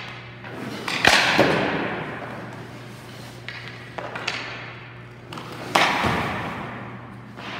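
Ice hockey pucks striking a goalie's gear, stick and the boards. Two loud sharp hits, about a second in and near six seconds, each echo and fade out across a large rink, with a few lighter knocks between them over a steady low hum.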